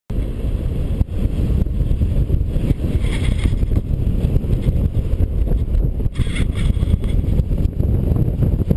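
Airflow buffeting a helmet-mounted camera's microphone in paragliding flight: a loud, low, steady rush of wind noise with a rough flutter.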